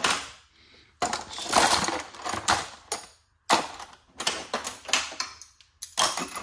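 Metal hand tools clinking and clattering as they are handled, set down and rummaged through, in several clusters of sharp clicks with short pauses between them.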